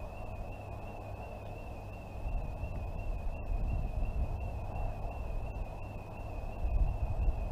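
An electronic alarm sounder giving one continuous high-pitched tone with a fast, even warble, over a low rumble.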